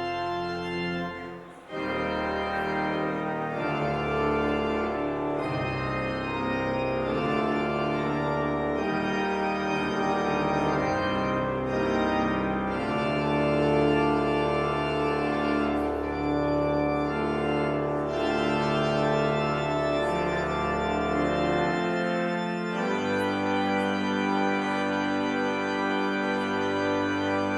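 Organ playing slow, sustained chords as the closing voluntary after the benediction, with a brief break about a second and a half in and the sound starting to fade at the very end.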